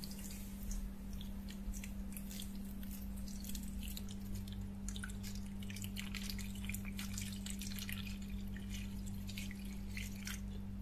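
Nitric acid poured in a thin stream from a plastic jug into a shallow plastic tray, splashing and dripping as it fills the tray around a rusty knife blade to soak off the rust. A steady low hum runs underneath.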